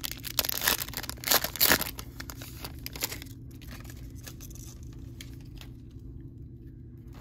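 Trading card pack wrapper crinkling and tearing as a Panini Prizm WWE pack is pulled from the box and ripped open, for about three seconds before it goes quiet.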